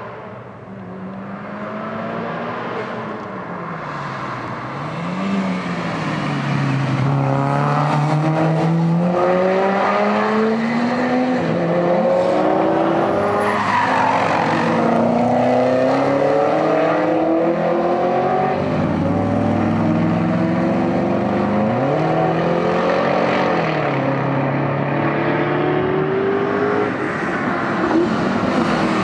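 Several Holden Commodore and HSV sedans lapping a race circuit, their engines accelerating hard with rising pitch, shifting up through the gears and dropping back for corners, one car overlapping another. The sound grows louder over the first few seconds as the cars approach.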